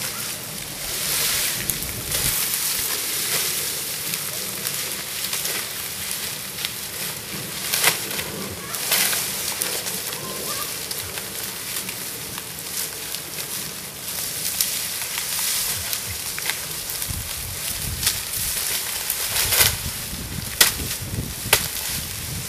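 Dry sugarcane stalks and leaves rustling and crackling as they are gathered and loaded onto a cane truck, with scattered sharp knocks as stalks land on the load.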